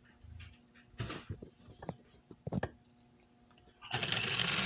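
Clicks and knocks of a tinplate toy train being handled, then a little before the end its repaired one-way electric motor starts and runs with a loud steady whir. The motor does not start reliably and often needs a push to get going.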